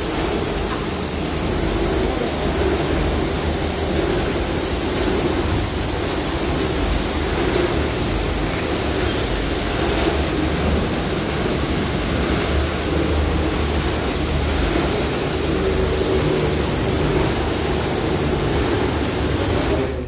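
Automatic carpet washing machine running: a steady mechanical hum and the continuous wash of its rotating disc brushes scrubbing over the bed.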